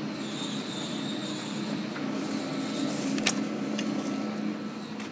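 Steady machine hum with a thin high whine from powered workshop machinery, and a sharp click a little after three seconds in.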